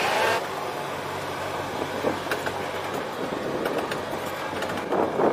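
Golf-cart-style utility vehicle running as it drives along a dirt lane: a steady low motor hum under road noise, with scattered small clicks.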